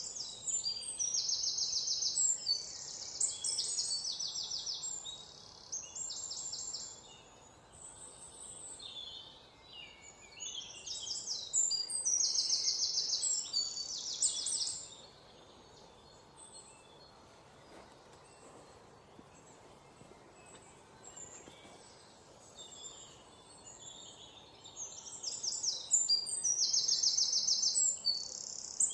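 Parrot chicks begging to be fed: high-pitched, rapidly pulsing calls in three bouts of a few seconds each, with quieter gaps between.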